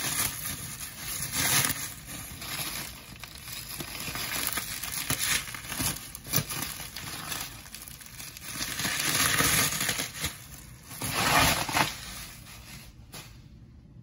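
Plastic bubble wrap crinkling and rustling as it is handled and pulled away, in irregular bursts. It is loudest about two-thirds of the way through and dies down shortly before the end.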